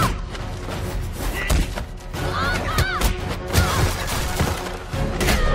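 Fight-scene sound effects: a rapid series of punch and kick thuds and smacks over a dramatic action score, with a few short yells in the middle.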